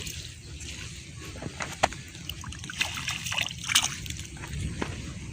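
Shallow water splashing and sloshing in short, irregular splashes, with a few sharper splashes.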